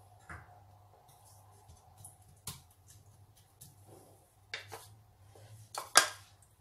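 A wooden spatula scraping and knocking in a nonstick pot, a few light clicks spread out, with a sharper knock near the end, over a faint steady hum.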